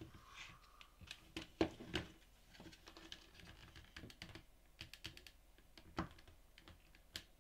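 Irregular small clicks and knocks of plastic and circuit board as a function generator's front-panel board is pushed and worked loose in its plastic housing. The sharpest knocks come about a second and a half in, at two seconds, and at six seconds.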